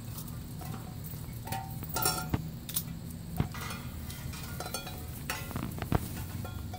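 Hanging metal kitchenware, stainless pots, cups and utensils, clanking and clinking as Rhodesian Ridgeback puppies knock into it. There are scattered ringing knocks, a cluster about two seconds in and more near the end, the sharpest near the end.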